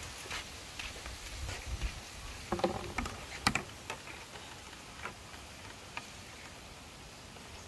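Light plastic basket knocking and scraping against bamboo slats, a scatter of sharp clicks and taps with a louder cluster of knocks about three seconds in, then fainter ticks.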